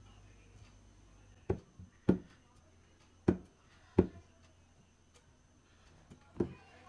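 Aluminium soft-drink cans being set down one at a time on a wooden table as they are shuffled: about five sharp knocks, irregularly spaced.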